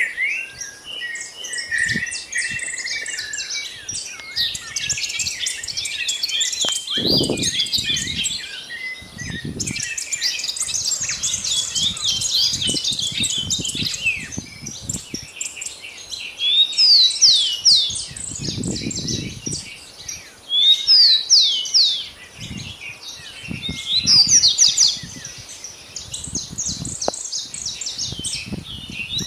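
Dawn chorus: many small birds chirping and singing at once in dense, overlapping high calls, with louder runs of quick falling whistled notes now and then. A few low thumps, the biggest about 7 and 19 seconds in.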